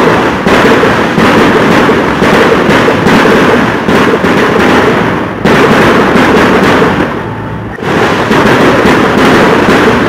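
Dense, unbroken barrage of fireworks and firecrackers, bang after bang with no gaps. It eases briefly at about five seconds in and again for most of a second past seven seconds, then comes back at full force.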